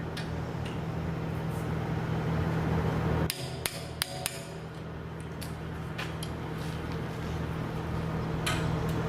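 Steel hand tools clinking against the steel bits of a forestry mulcher head: a quick cluster of sharp, ringing metal clicks about three seconds in and a few fainter ones near the end, over a steady low hum.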